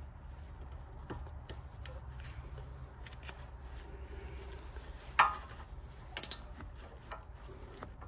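Small metallic clicks and clacks from handling the rear brake caliper carrier as its greased slide pins are pushed back into their rubber boots, with a sharp knock about five seconds in and a quick triple click a second later.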